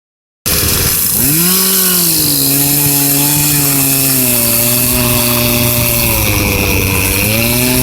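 Chainsaw revving up about half a second in, then its engine pitch dropping and holding steady as it cuts under load, with two brief dips in pitch near the end.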